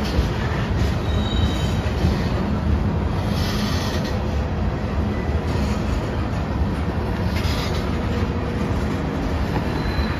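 Covered hopper cars of a CSX freight train rolling past: a steady rumble of steel wheels on rail, with a brief faint high squeal about a second in and again near the end.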